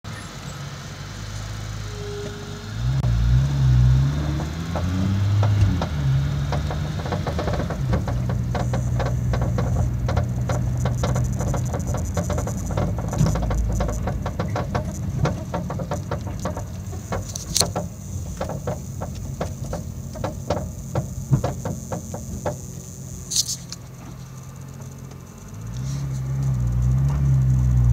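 Nissan GT-R's twin-turbo V6 engine heard from the cabin, revving up a few seconds in and again near the end. In between comes a dense run of clicks and rattles from the front suspension. The owner suspects the heim joints of the aftermarket front adjustable control arms, since new ball joints did not cure it.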